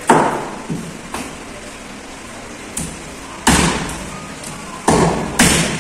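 Heavy cleaver chopping through fish on a wooden block: a few hard chops at uneven intervals, the heaviest in the second half.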